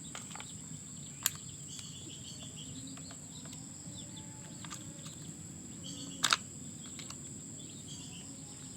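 Steady high-pitched insect trill, like crickets, with faint chirps, and two sharp clicks: a small one about a second in and a louder one about six seconds in.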